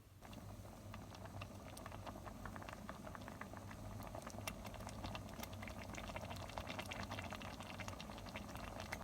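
Food frying in a hot pan: a steady sizzle with dense, irregular crackling and spitting pops, starting suddenly and cut off at the end.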